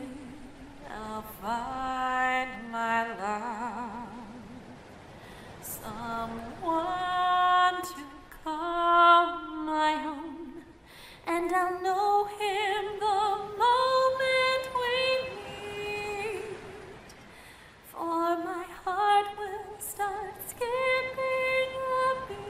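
A woman singing a slow melody unaccompanied, with vibrato, in four long phrases separated by short breaths.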